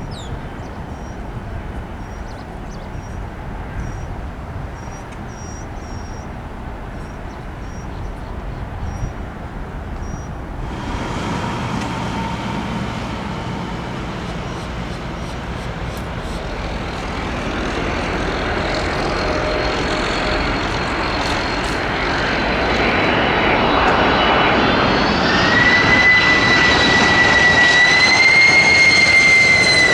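Jet airliner's engines growing steadily louder as the aircraft approaches, a rush of engine noise that builds from about a third of the way in. A high engine whine comes in near the end and rises slightly in pitch.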